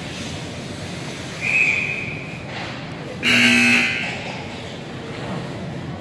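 A referee's whistle blows for about a second, then a little over three seconds in a louder, harsh buzzer sounds for just under a second, over the steady hum of the arena.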